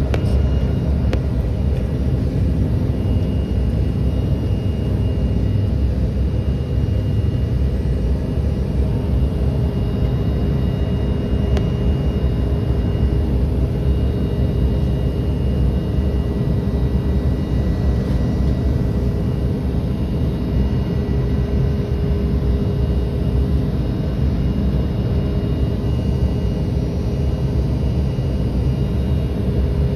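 Steady cabin noise of a regional jet in its climb: a loud, even low rumble from the engines and airflow, with faint steady whining tones above it.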